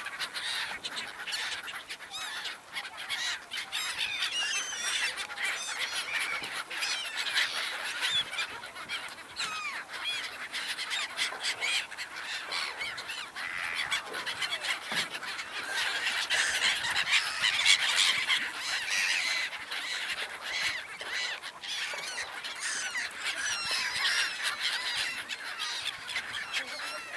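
A flock of black-headed gulls calling over the water: many short, harsh calls overlapping in a continuous chorus, loudest a little past the middle.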